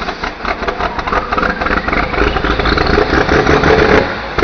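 Farm tractor engine running hard under load while pulling a sled, its pitch rising partway through and getting louder.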